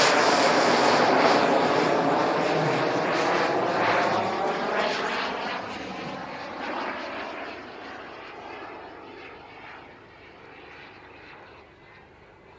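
Turbine engine of a large radio-controlled F-104 Starfighter model jet flying past overhead. A loud jet roar sweeps down in pitch and fades steadily as the model flies away.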